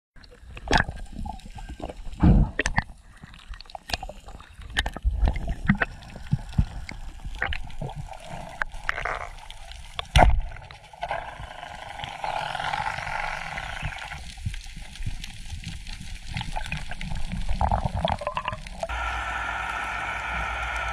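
Underwater sound: bubbling and gurgling water with many sharp clicks and knocks, the loudest about two and ten seconds in. A steady hiss sets in near the end.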